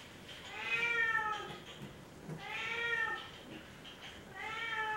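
Domestic cat meowing three times, each a drawn-out call of about a second that rises and then falls in pitch, spaced about two seconds apart. It is a cat complaining while being bathed.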